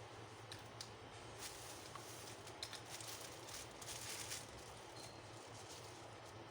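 Faint handling noise: scattered small clicks and a brief rustle about three to four seconds in, over a steady low hum.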